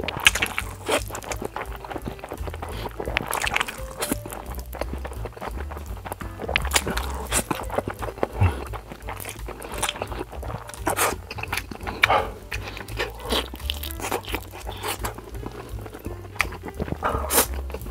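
Close-up slurping of spicy stir-fried noodles and chewing, with many short wet clicks and smacks, over background music.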